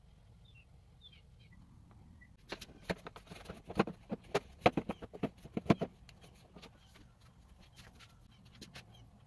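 Nylon cable ties being handled and pulled through holes in a plastic wheelbarrow tub: a run of sharp, irregular clicks and ticks lasting about three and a half seconds, beginning about two and a half seconds in.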